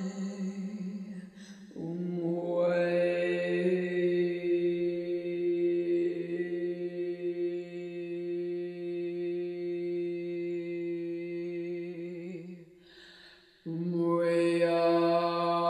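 A woman's voice chanting long wordless tones on one steady pitch, with one note held for about eleven seconds. Short breaths come just after the start and again near the end, before the next long note.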